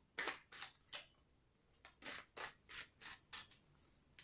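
A deck of tarot cards shuffled hand over hand: quiet short swishes of cards sliding against each other, about three a second, with a brief pause about a second in.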